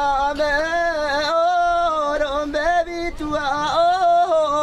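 A single voice singing a traditional welcome chant: one melodic line of held notes broken by quick ornamental turns in pitch, with a short break about three seconds in.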